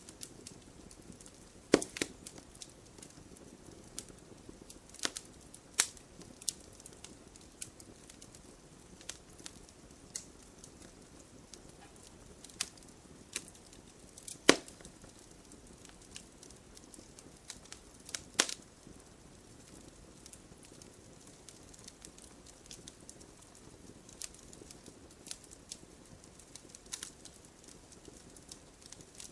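Wood campfire crackling: irregular sharp pops and snaps over a faint soft hiss, with a few louder cracks, about 2, 14 and 18 seconds in.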